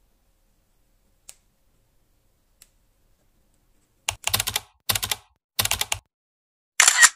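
Typing sound effect: four quick bursts of keys clattering, each about half a second long, starting about four seconds in. Before them come three faint single taps.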